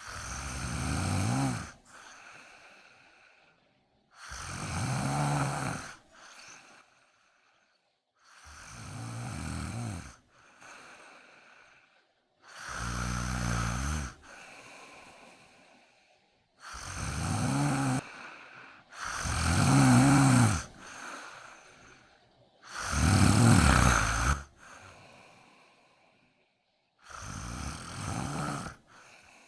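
Cat snoring in its sleep: eight loud snores about every four seconds, each followed by a softer breath.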